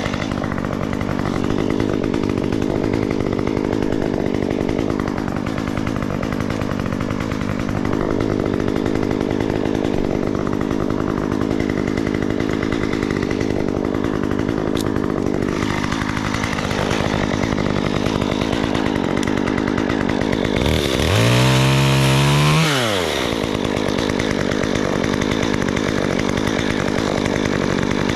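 Chainsaw running steadily, then revved hard once about 21 seconds in, its pitch climbing and dropping back within about two seconds.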